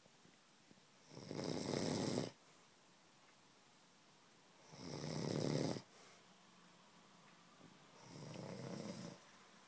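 A sleeper snoring: three snores about three and a half seconds apart, each lasting about a second, the last one softer.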